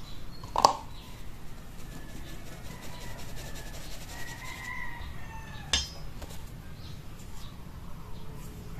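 Flour being sifted by hand through a mesh sieve over a stainless steel bowl, with two sharp knocks as the sieve is handled against the bowl. A rooster crows faintly in the background.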